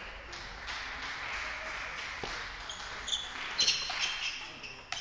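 Table tennis ball being hit and bouncing during a rally: a few sharp, irregular clicks, loudest and quickest a little past halfway through. A steady rushing noise fills the first half.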